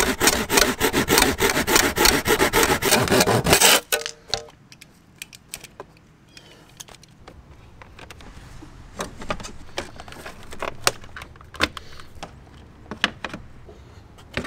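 Hand saw cutting through a plastic BMW engine cover, rapid back-and-forth strokes for about four seconds. After that come quieter scattered clicks and light knocks as plastic engine-bay parts are fitted back into place.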